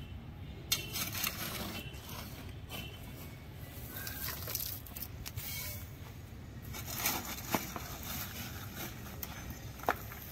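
Small hand trowel scooping dry red soil and tipping it onto a heap of potting soil on a concrete floor: gritty scraping and crumbling in several short spells, with two sharp clicks in the second half.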